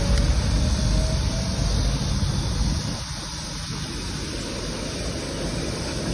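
Wind buffeting the microphone of a phone carried on a moving bicycle, over a steady hiss of road and traffic noise. The low rumble eases about three seconds in.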